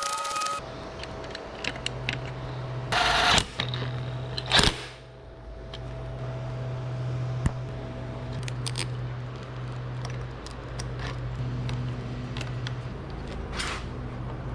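Scattered clicks and light knocks of bike parts and tools being handled during fork and triple-clamp refitting, with two short loud rasping bursts about three and four and a half seconds in, over a steady low hum.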